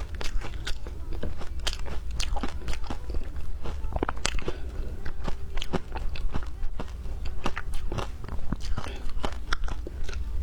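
Frozen ice being bitten and chewed close up: a dense, irregular run of sharp crunches and cracks, several a second, over a steady low hum.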